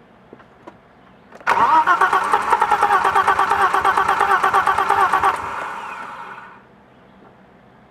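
BMW M20 straight-six cranked on its starter for about four seconds with a fast, even rhythm, without firing, then a whir that fades away once the key is released. It is a no-start, cranking but not catching.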